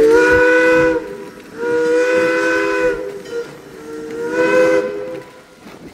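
Steam locomotive No. 2023's whistle blown three times, each blast about a second long with short pauses between. Each blast sounds a chord of several tones at once, the sound of a multi-chime whistle.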